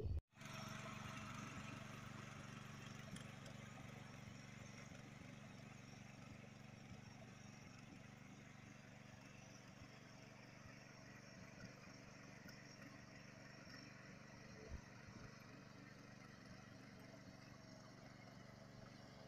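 Faint, steady hum of a walk-behind power tiller's small engine working a flooded paddy field, slowly growing fainter.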